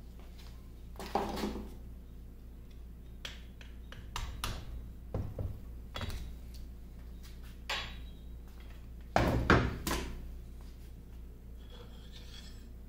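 Irregular metal clanks and knocks from a steel hand tool worked against a cast-iron lathe compound held in a vise, as its stuck feed screw is worked loose. The loudest knocks come as a quick cluster about nine to ten seconds in.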